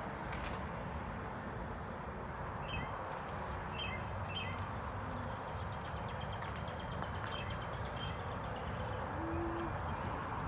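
Birds chirping in short, high calls, a handful of times, over a steady outdoor background rumble.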